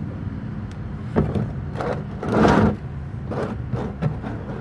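A plastic oil drain pan pushed and scraped along the ground under the car: a few short knocks and scrapes, the loudest a half-second scrape about halfway through, over a steady low hum.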